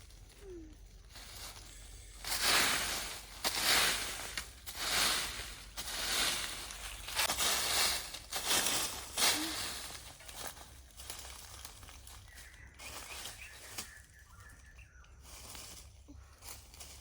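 Rustling and crunching of leaves and plants, in a run of about eight loud bursts roughly a second apart, followed by quieter, scattered rustles.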